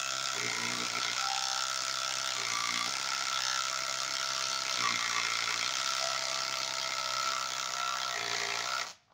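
Kobalt XTR 24-volt impact driver hammering steadily under load as it drives a long screw into the end grain of a wooden log. It stops abruptly near the end.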